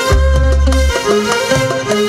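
Instrumental passage of Arabic-style music on violin, oud, frame drum and electronic keyboard, with a moving melody over sustained low bass notes.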